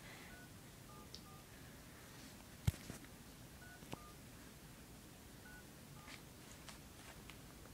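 Faint telephone keypad tones as a number is dialed: several short two-note beeps spaced unevenly. A sharp click about 2.7 s in is the loudest sound.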